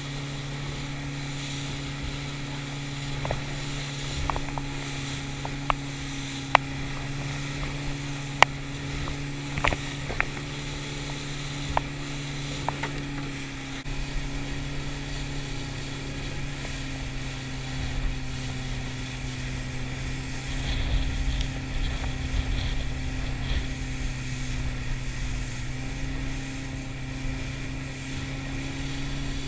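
Boat's outboard motor running at a steady trolling pace, a constant hum, with water washing along the hull. A scattering of sharp knocks comes in the first half.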